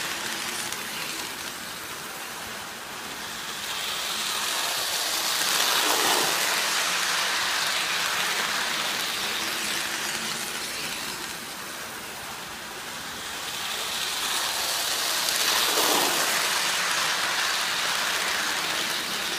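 O-gauge model train running on three-rail track, a steady rush of wheels and motor that swells louder twice as it passes close.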